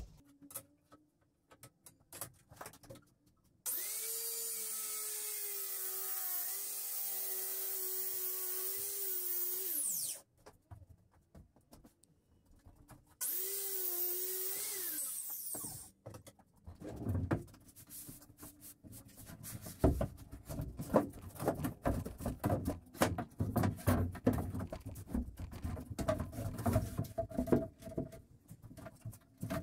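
Handheld circular saw cutting a large board along a straightedge guide: one long cut of about six seconds, then a shorter one of about three seconds, each a steady motor whine that spins up and winds down. In the second half, scattered knocks and clatter as wood pieces are handled.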